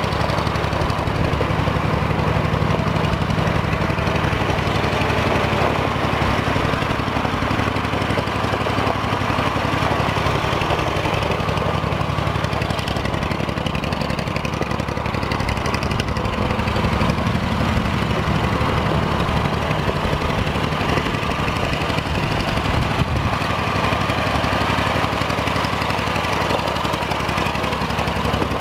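Massey Ferguson 135 tractor's four-cylinder gasoline engine running steadily while the tractor is driven.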